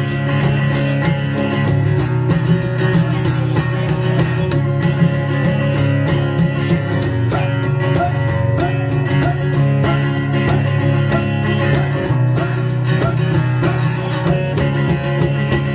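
Instrumental break of a country song: strummed guitar with a steady beat and a jingling tambourine, no singing.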